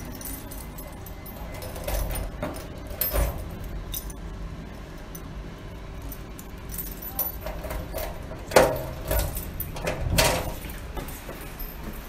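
Keys jangling and a key turning in the lock of a metal front door, with a scatter of sharp clicks and clinks, the loudest about eight and a half seconds in.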